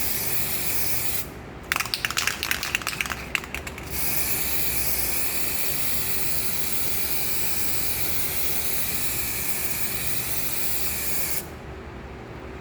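Aerosol spray paint can spraying with a steady hiss, broken about a second in by a couple of seconds of rapid rattling, then a long continuous spray that cuts off shortly before the end.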